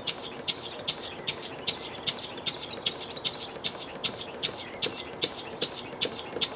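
Small Wig-Wag model engine with a brass flywheel running just above stalling speed while it drives a Baker fan. Its exhaust beats come sharp and evenly spaced, about two and a half a second.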